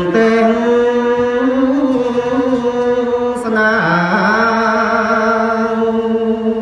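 A man's solo voice chanting Khmer Smot, Buddhist devotional verse, drawing each syllable out into long held notes with a slow, slight waver. About three and a half seconds in the note breaks off, dips, and settles into another long held note.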